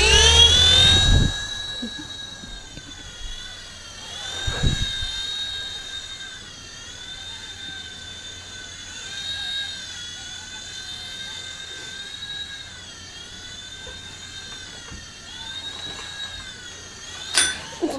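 Toy RC helicopter's motor and rotor whining as it spools up with a steep rise in pitch, then holding a steady high whine whose pitch wavers up and down as the throttle changes. A knock comes about four and a half seconds in and a sharp click near the end.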